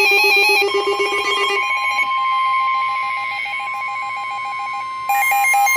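NOAA Weather Radio alert tones. A fast warbling electronic alert stops under a second in, and the steady 1050 Hz warning alarm tone takes over, with a rapid pulsing beep alongside it. Near the end the warbling alert starts again over the steady tone, which marks a warning-level alert, here a severe thunderstorm warning.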